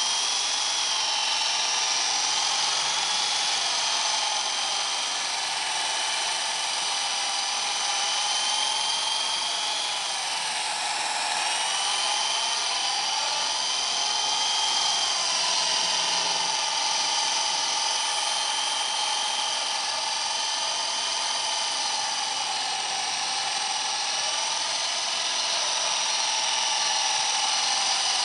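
Extreme 350X electric RC helicopter's motors whining with its rotors whirring as it hovers and manoeuvres low over the ground. The pitch wavers up and down with throttle changes, sagging and recovering around a third and a half of the way in.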